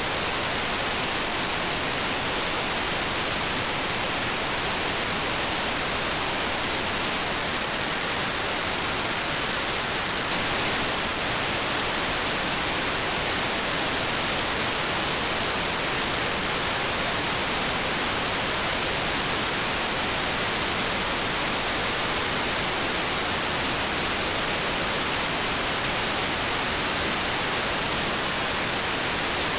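Steady hiss of FM receiver static from an RTL-SDR dongle's demodulated audio, tuned around 98.5 MHz in the FM broadcast band. No station's audio comes through, only noise. The hiss gets a little louder about ten seconds in.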